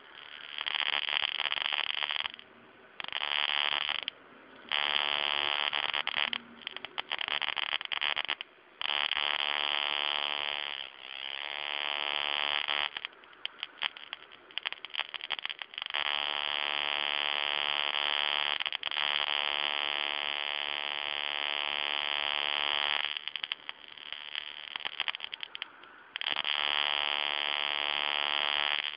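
Homemade stun gun arcing, throwing 5–7 mm sparks: a high-pitched electric buzz switched on and off in bursts of one to a few seconds, with one longer run of about seven seconds past the middle.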